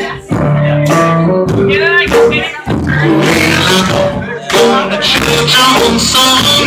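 Live band playing loud blues-rock with electric guitar, recorded on a camera phone.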